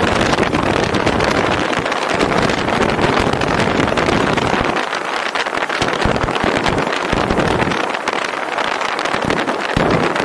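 Steady rush of wind and road noise from a car driving along, with low wind gusts buffeting the microphone that come and go.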